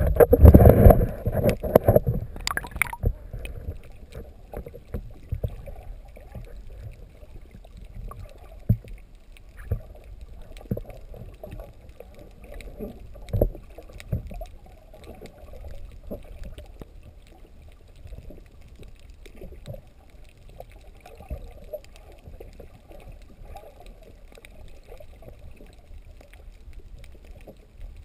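Water heard by a camera held underwater while snorkelling: loud splashing and churning for the first two or three seconds, then a muffled, dull rush of moving water with scattered small clicks and knocks.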